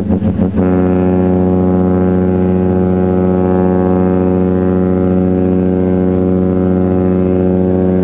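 Cruise ship Oriana's deep horn sounding one long, steady blast.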